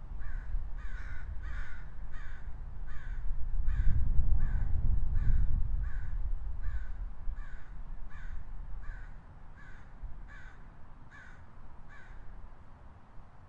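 American crow cawing over and over, roughly three caws every two seconds, stopping about a second before the end. Under it, a low rumble swells and fades a few seconds in.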